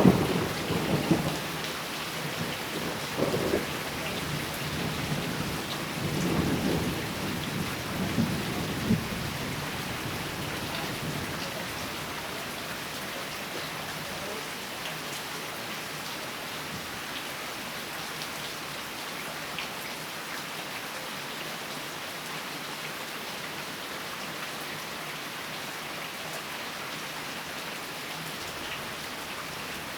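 Steady rain falling, with thunder rumbling through the first several seconds and dying away, leaving only the even hiss of the rain.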